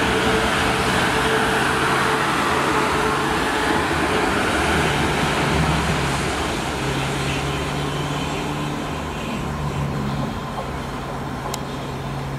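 South Western Railway Class 450 Desiro electric multiple units: one running along the platform with a steady rush and rumble of wheels on rail. About halfway through, a second one is heard approaching, quieter, with a steady low hum.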